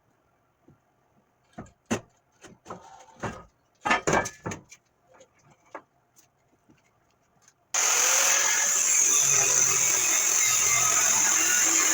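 A run of irregular clanks and knocks from steel parts being handled, then a loud, steady power-tool noise that starts abruptly about eight seconds in.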